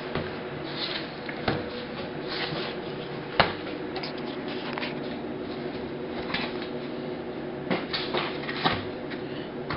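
Foam packing sheets and cardboard being lifted out of a shipping box and handled: rustling and scraping with scattered knocks, the sharpest about three and a half seconds in, over a steady low hum.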